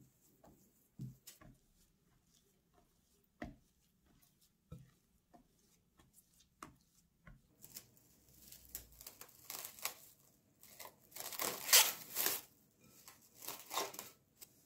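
Hands kneading soft, sticky bread dough in a glass bowl, with faint soft slaps and squelches. About halfway through, plastic cling film crinkles as it is pulled and stretched over the bowl, loudest near the end.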